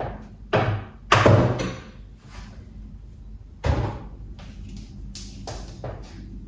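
A few sudden knocks and thuds, as of household doors or items being handled. The loudest is about a second in, with others shortly before it and twice more later on.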